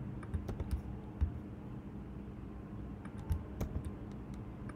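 Computer keyboard keystrokes, a few scattered clicks at irregular intervals, over a low steady hum.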